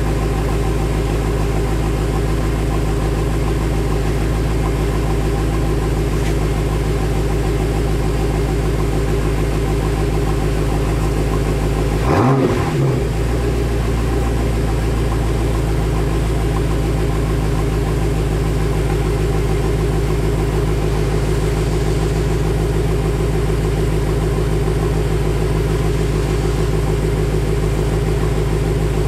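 2015 BMW M5's twin-turbo V8 idling steadily through a custom exhaust, with one short throttle blip about twelve seconds in.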